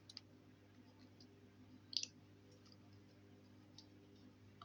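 Near silence with a few faint clicks and taps from a plastic Play-Doh mould set being handled, the clearest about two seconds in, over a low steady hum.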